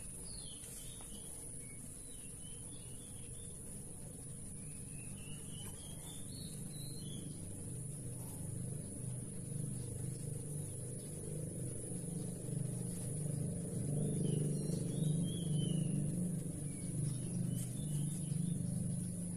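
A low engine hum, like a passing vehicle, that swells over several seconds and then eases off. Scattered short bird chirps and a steady high-pitched whine run through it.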